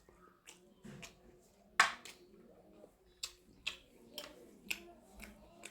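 Eating sounds: a string of about ten irregular sharp clicks and smacks, the loudest about two seconds in, over a faint steady hum.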